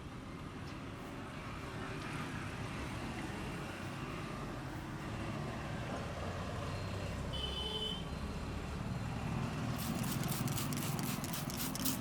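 Street traffic rumbling steadily, with a brief high beep about halfway through. Near the end a fast, even run of sharp taps begins.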